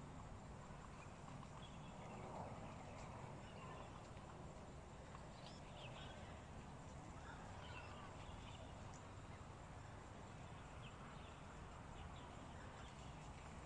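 Faint rural ambience: a steady low background noise with scattered short, high bird chirps.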